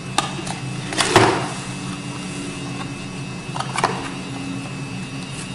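A rigid cardboard product box being handled and its lid opened by hand: a few light clicks and knocks, the loudest about a second in and a smaller cluster near four seconds. A steady low hum runs underneath.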